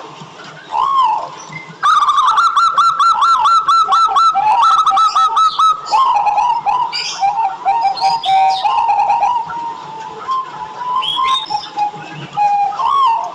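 Zebra dove (perkutut) song: a few short arched coos, then from about two seconds in a loud, rapid run of repeated staccato notes lasting about four seconds, followed by more scattered cooing notes.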